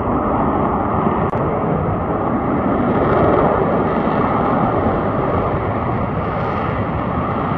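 Il-76 military transport's four jet engines as it rolls along the runway: a loud, steady rushing rumble with no distinct whine.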